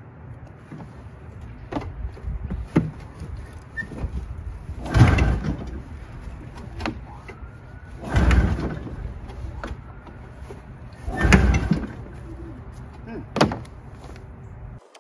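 Ski-Doo Formula MX's Rotax 467 cc two-stroke twin being pull-started by its recoil starter, four hard pulls about three seconds apart that crank it without it catching, over a steady low rumble. The owner takes it for flooded, its spark plugs soaked.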